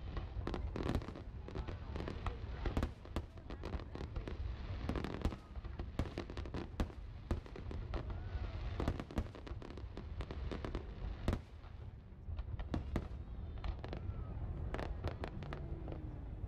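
Aerial fireworks shells bursting in a rapid barrage: sharp bangs several times a second over a continuous low rumble, with one especially loud bang about eleven seconds in.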